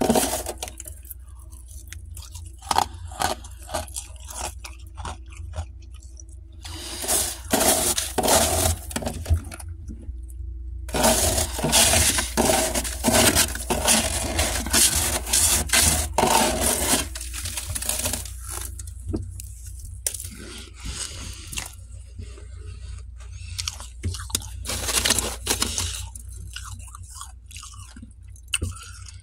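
Metal spatula scraping and shaving packed frost off the walls of a freezer, in crunchy bursts a few seconds long with short pauses between them.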